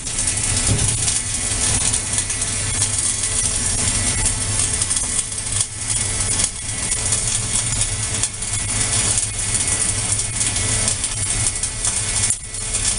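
Welding arc crackling and hissing steadily as a welding carriage lays a vertical seam, with a low hum underneath and a few brief dips.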